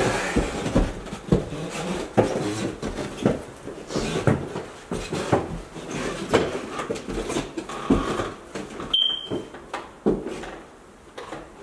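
Footsteps on bare wooden stairs and floorboards, about one step a second. A single short, high beep sounds about nine seconds in.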